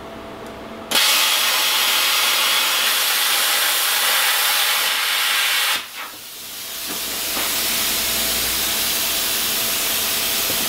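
Plasma cutter cutting a hole in the steel frame: a loud steady hiss that starts suddenly about a second in and stops abruptly some five seconds later. After a brief pause a slightly quieter steady hiss builds up again and continues.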